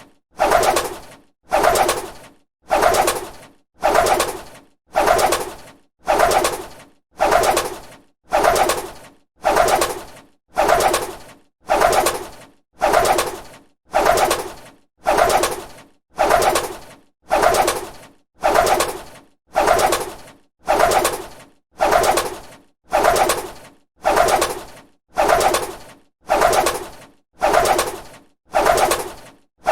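A bird's wings flapping in short flurries, about once a second, each starting sharply and fading away, the same flurry repeated evenly over and over.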